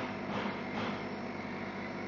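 Orbimatic 160C orbital welding machine running: a steady hum with several fixed tones under a hiss. Twice, briefly, near the start the hiss swells.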